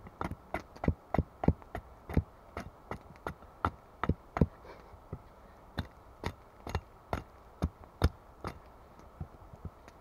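Hatchet chopping into a thin wooden stick held upright on a log chopping block: a quick, uneven run of sharp wooden knocks, about two to three a second, with a short pause a little before halfway.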